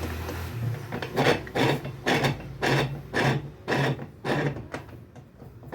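Hand ratchet wrench being worked in short repeated strokes, about two a second, with rough metal clicking and rubbing.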